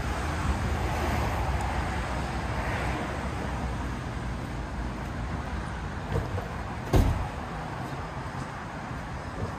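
City street ambience: a steady low traffic rumble, with a car passing in the first few seconds. A single sharp thump sounds about seven seconds in.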